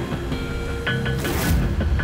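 Background music score of repeated struck, pitched notes over a deep low pulse, with a short rushing swish about a second and a half in.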